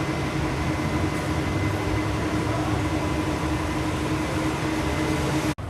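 Steady mechanical rumble with a constant droning hum, like a train or heavy machinery running. It starts and cuts off abruptly.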